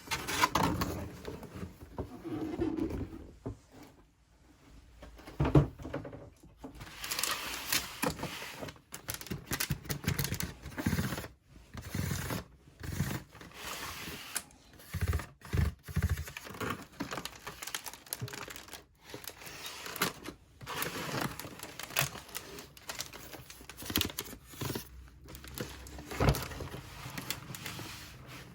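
Unboxing handling noise: packaging crinkling and tearing, with irregular clicks and light knocks as parts are handled.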